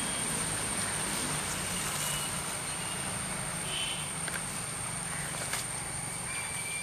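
Forest ambience: a steady hiss with a constant high-pitched whine, a few faint short bird-like whistles and a single sharp click about five and a half seconds in.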